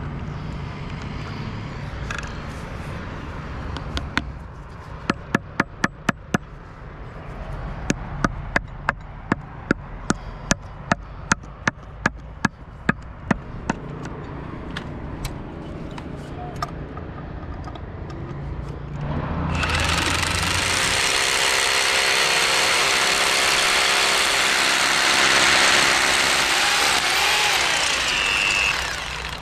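A run of about twenty sharp knocks, roughly two a second, then a power tool starts about twenty seconds in and runs loudly and steadily for about ten seconds before stopping.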